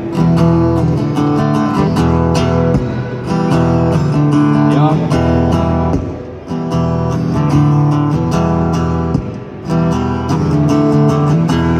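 Acoustic guitar strummed in a steady rhythm, moving through chord changes, with no vocals.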